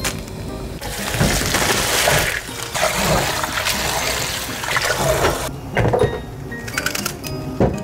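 Kitchen tap water running and splashing for about four and a half seconds, then stopping, followed by a few light clicks and knocks.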